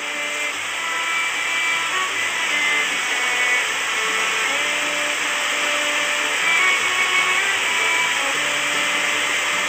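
Steady rush of flowing river water, with background music of held notes that change every second or so laid over it.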